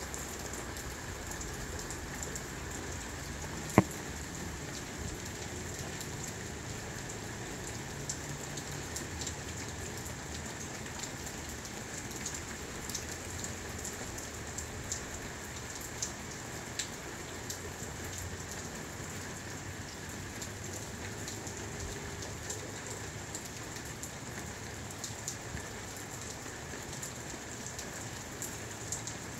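Steady rain falling, with scattered raindrop ticks and one sharp click about four seconds in.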